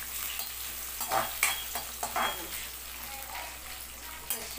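Sliced onions and green chillies sizzling in hot oil in a kadai, being stirred. The spoon scrapes and knocks against the pan a few times.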